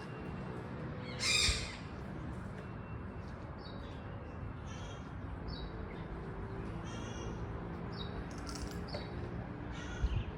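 Yellow-collared macaw giving one loud, harsh squawk about a second in, followed by a run of short, high-pitched calls, over a steady low background hum.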